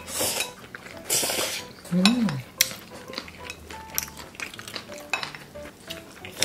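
Spicy whelk noodles slurped in two quick pulls near the start, with chopsticks clicking and scraping against glass bowls throughout, and a short hummed 'mm' about two seconds in.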